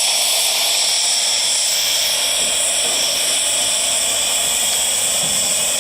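Steam boiler's pop-off (safety) valve blowing off steam in a steady, loud hiss: the boiler has reached its 75 psi set pressure.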